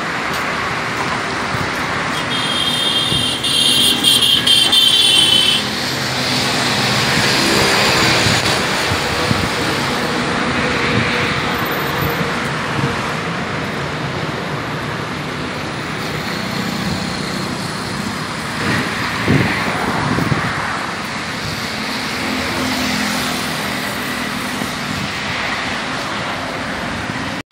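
Steady road traffic noise from passing cars and trucks, with a vehicle horn sounding for about three seconds a few seconds in.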